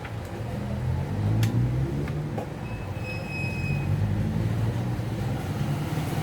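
Low rumble of a vehicle engine, rising and falling, with one short high-pitched beep about three seconds in.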